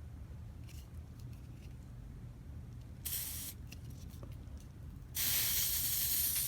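Aerosol smoke-detector test spray hissing from a can at a smoke detector: one short spray about three seconds in, then a longer, louder spray near the end.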